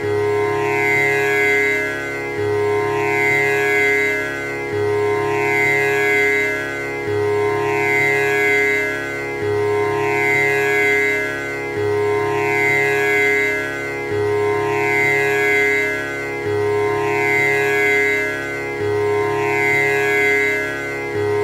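Tanpura drone: its strings plucked in turn in an unbroken cycle that repeats about every two and a half seconds, each cycle starting on the low string, with a rich, buzzing sustain.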